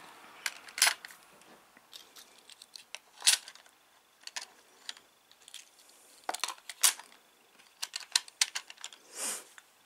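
Die-cast Hot Wheels cars being set into the lanes of a plastic launcher track: scattered light clicks and taps of metal on plastic, the loudest about one, three and seven seconds in. A soft brushing sound comes near the end.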